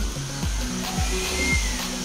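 Background music with a steady beat, a low thump about twice a second under sustained bass notes, over a steady hiss.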